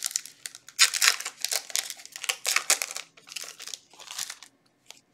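Foil Yu-Gi-Oh booster pack wrapper crinkling as it is torn open and handled, a rapid run of crackles that thins out and stops about four and a half seconds in.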